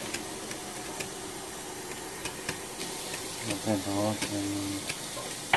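Water poured in a steady stream into a cooking pot onto chopped Chinese cabbage, making a steady hiss, while the pot is filled to about three-quarters for simmering rice.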